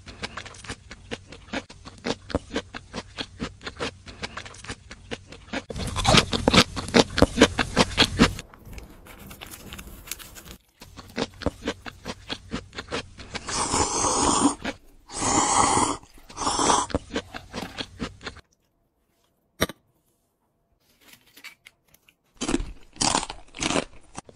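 Close-miked eating: steady rhythmic chewing and crunching, about three bites a second, louder and crunchier for a couple of seconds around six seconds in. Three longer noisy bursts follow a little past halfway, then a brief lull and more chewing near the end.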